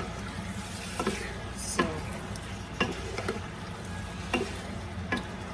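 A spatula stirring chicken and vegetables in a frying pan, scraping and knocking against the pan roughly once a second over a steady sizzle.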